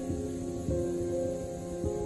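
Background music with a steady beat of about one low thump a second under held tones.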